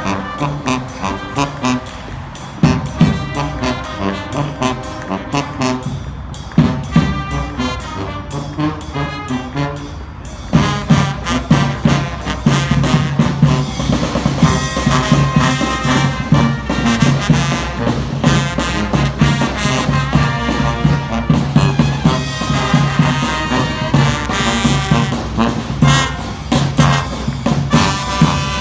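Brass band playing an upbeat swing-style tune with horns over a steady beat; about ten seconds in the full band comes in and it grows fuller and louder.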